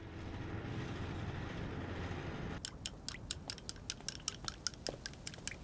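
A soft hiss, then, about two and a half seconds in, a kitchen knife starts chopping on a cutting board in quick, even strokes, about six a second.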